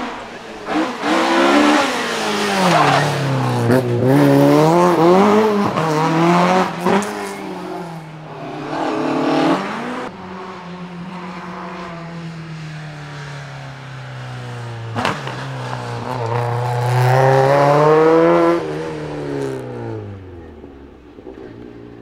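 Talbot Avenger rally car's four-cylinder engine at full throttle, its pitch climbing and dropping several times as it is driven hard through the gears. It fades near the end as the car pulls away.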